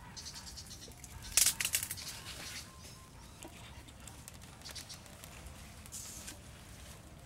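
Dry twigs and leaves crackling and rustling in short scattered bursts, with a louder rustle about a second and a half in.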